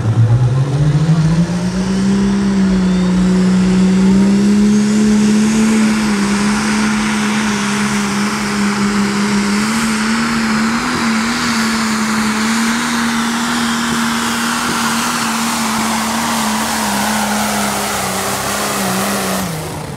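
Limited Super Stock pulling tractor's diesel engine at full throttle under the load of the brake sled. It revs up over the first two seconds, holds a high, steady pitch with a rushing noise for about seventeen seconds, then drops near the end as the pull finishes.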